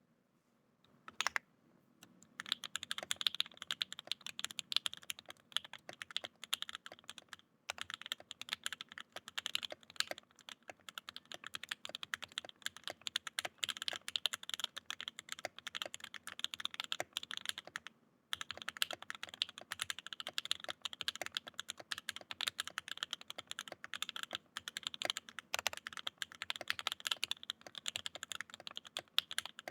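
Typing on a Mode Eighty mechanical keyboard with an FR4 plate and c3 Fierce Girl switches lubed with Krytox 205g0 and filmed: one sharp keystroke about a second in, then a dense, steady stream of keystroke clacks from about two seconds in, with two brief pauses.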